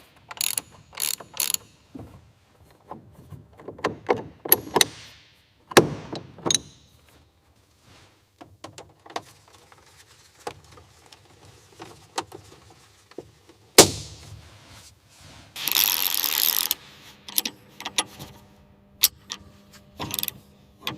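Irregular metallic clicks, clanks and ratchet-like ticks of workshop tools and aircraft parts being handled and fastened, with a sharp knock about fourteen seconds in and a hiss lasting about a second shortly after.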